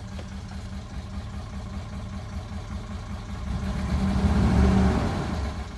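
2003 Dodge Durango's 4.7-litre V8 engine running with a rattle. It swells louder about two-thirds of the way through, then drops back.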